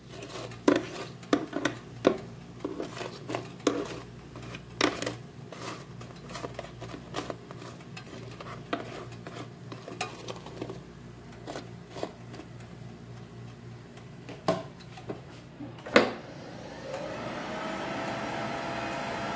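Tongs clicking and knocking against an air fryer's pan as samosas are moved and turned, many light taps over several seconds, then one louder knock. About a second later a steady hum with a faint whine sets in as the DeLonghi air fryer runs.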